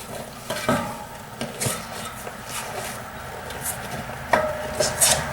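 Rubber inner tube being pushed and worked into a dirt bike tire on its rim, with rubbing and handling noise and a few light knocks; about four seconds in comes a sharper knock with a short ring.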